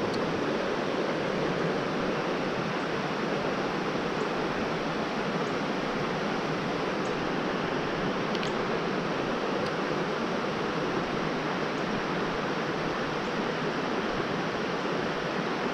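Fast-moving creek water rushing steadily.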